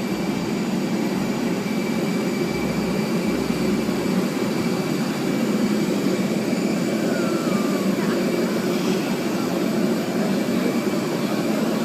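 Steady jet airliner noise: an even rushing hum with a thin, constant high whine over it.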